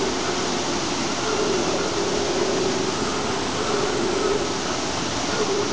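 Black howler monkeys howling faintly in drawn-out, low phrases that come and go, under a loud, steady rushing noise.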